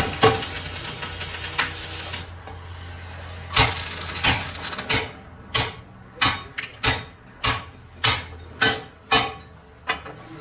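Metal being struck with a hammer in a metal workshop, steady blows about one every 0.6 seconds, each with a short metallic ring. Before the hammering there are two stretches of harsh steady noise over a low machine hum.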